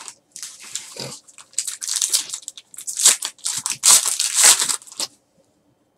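Foil wrapper of a Panini Select basketball card pack torn open by hand and crinkled: a run of crackling, rustling tears that stops about five seconds in.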